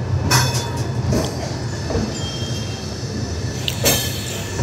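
Jan Shatabdi Express passenger train pulling slowly out of the station: a steady low rumble from the rolling coaches, with two sharp clanks from the wheels and couplings, one just after the start and one near the end, and a few fainter knocks between them.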